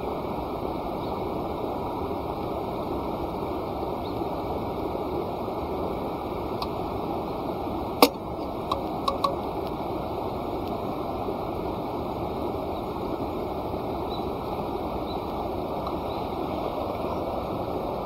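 Campfire burning with a steady rushing hiss, one sharp pop about eight seconds in and a few smaller crackles just after it.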